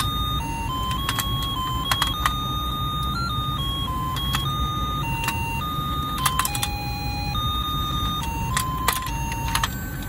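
Battery-powered bird-catching game toy running: its motor turning the board with a steady low drone, under a simple beeping electronic tune that steps from note to note. Sharp plastic clicks sound now and then, in a cluster about two seconds in and again near the end.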